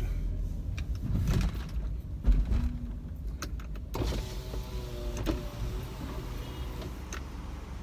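A car's electric window motor whirs steadily for about three seconds, starting suddenly about four seconds in, as the driver's window is wound down. The car's low running rumble continues underneath, with a few clicks earlier on.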